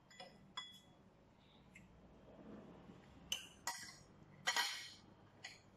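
Metal spoon and fork clinking against a ceramic bowl while eating noodles: about seven short, sharp clinks spread out, the loudest and longest a little past halfway.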